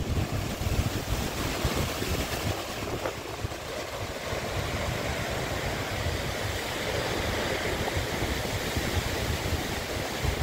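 Storm wind buffeting the microphone in gusts over the steady rush of heavy surf breaking on a rocky shore.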